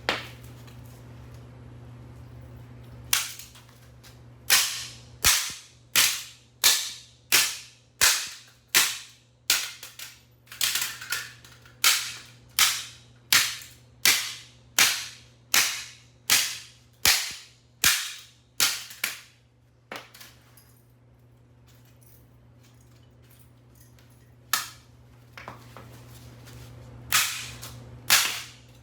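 Repeated sharp blows on a Panasonic 2M261-M32 microwave oven magnetron, about one and a half strikes a second for some fifteen seconds, then a pause and a few more strikes near the end.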